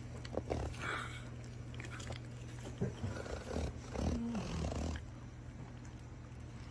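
A dog eating desalted gompi seaweed, with irregular wet chewing and smacking sounds through the first five seconds and a short low falling tone about four seconds in; the chewing stops about five seconds in.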